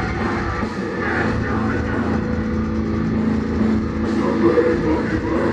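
Metal band playing live at full volume: distorted guitars, bass and drums in a dense, steady wall of sound.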